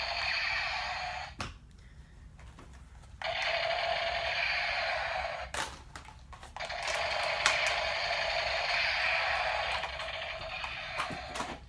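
Battery-powered toy micro Uzi firing its sound effect in three long bursts, the last one about five seconds long, with short clicks in the gaps.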